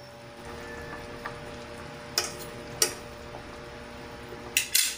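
A pot of pork boiling uncovered, a steady bubbling. A few sharp metal taps from a utensil against the pot as the meat is tested for tenderness come about two seconds in and just before three, with a louder cluster near the end.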